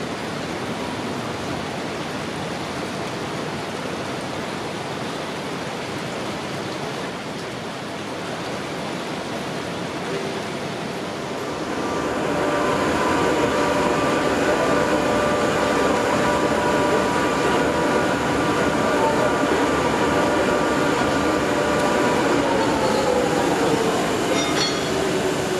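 Steady hiss of rain for the first dozen seconds. Then a standing electric locomotive's steady whine of several tones, louder, with one tone falling in pitch near the end.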